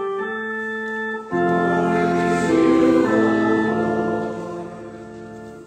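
Organ playing slow, sustained chords. About a second in, a louder, fuller chord with lower notes comes in, and it fades away near the end.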